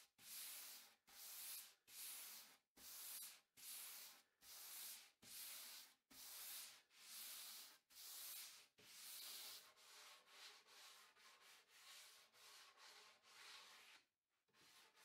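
A hand sanding sponge rubbing back and forth across a solid mahogany tabletop, giving it a light finish sand before the finish goes on. Faint, even strokes at a little over one a second, turning to quicker, shorter strokes after about nine seconds and stopping about a second before the end.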